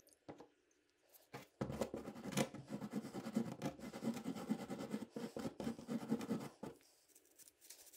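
Small stiff brush scrubbing carbon deposits off an engine valve in quick, irregular scratchy strokes. It starts about a second and a half in and stops a little over a second before the end.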